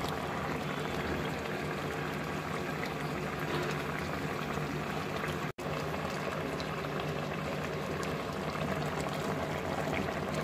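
Thin fish curry boiling in an open pot: a steady bubbling hiss with small pops. The sound drops out for an instant a little past halfway.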